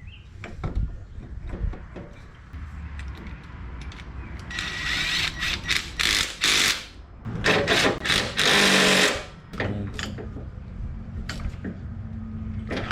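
Handheld power tool, such as a cordless drill or driver, running in several short bursts and then one longer run of about two seconds, amid light tool clatter, as bolts are driven during an AC compressor installation.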